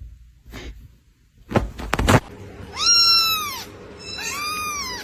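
A cat meowing twice, each call rising and then falling in pitch, the second a little quieter. A few short knocks come before the first meow.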